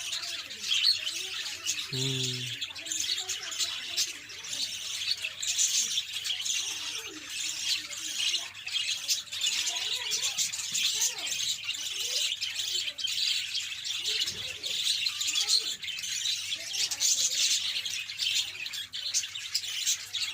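A group of parrots chattering and squawking without a break: many short, high calls overlapping one another.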